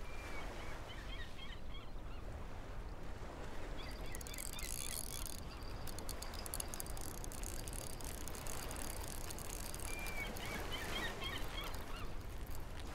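Seaside ambience: a steady low rumble of wind and sea, with bird calls near the start and again about ten seconds in. From about four to ten seconds a Leeda spinning fishing reel clicks rapidly as it turns.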